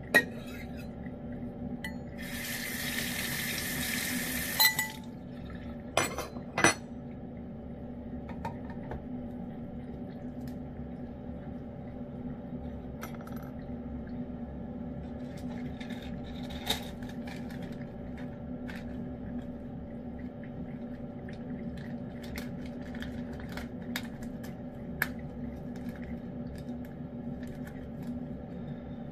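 Table knife clinking and scraping against a metal cat food can and the cat's dish: a sharp clink at the start and two more about six seconds in. A hiss lasting a couple of seconds comes about two seconds in, over a steady low hum.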